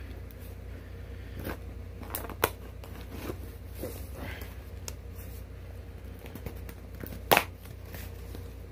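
A cardboard shipping box being worked open by hand: scattered rustling, scraping and tearing, with a few sharper cracks, the loudest near the end.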